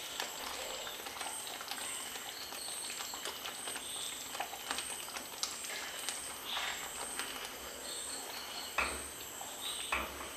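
Thick curry gravy simmering in a pan with faint scattered bubbling pops, over a steady high chirping that repeats in the background. A few louder scrapes of a wooden spatula stirring the gravy come near the end.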